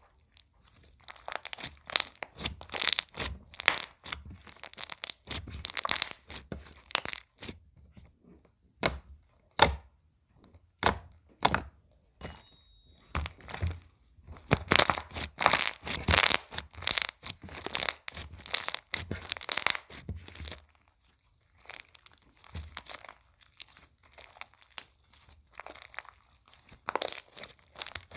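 Slime being squished, stretched and pressed by hand, giving irregular runs of crackly, crunchy popping with short pauses between handfuls.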